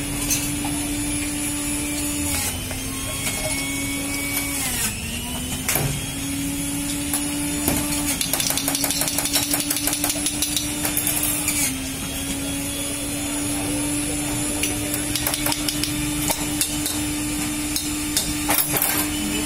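Kulukki sarbath being shaken in a glass capped with a steel tumbler: ice, glass and steel clattering in a fast rattle for a few seconds midway. A steady machine hum runs underneath, and there are a few sharp clinks near the end.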